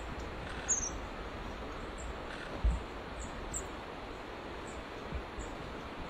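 Short, very high, thin calls of long-tailed tits, about eight scattered through, over a steady hiss of outdoor background noise. A couple of low thumps, the loudest about two and a half seconds in.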